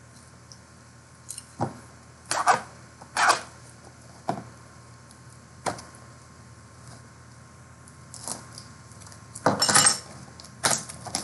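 A pack of 2020 Luminance football trading cards and its wrapper being handled and opened: a series of short, irregular crinkles and clicks, the loudest cluster a little before the end.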